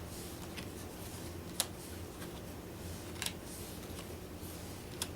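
Playing cards being laid down one at a time on a table: three light, sharp snaps about a second and a half apart.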